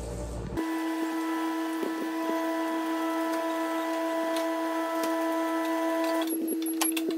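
Arezzo microwave oven running: a steady electrical hum with several fixed pitches, starting about half a second in, as it counts down the last seconds of cooking. Near the end part of the hum drops away and a few sharp clicks follow.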